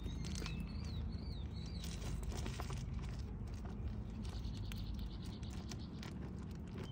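Two tortoises shoving each other over gravel: scattered hollow clicks and knocks of shell against shell and stones. A bird chirps through the first second or two.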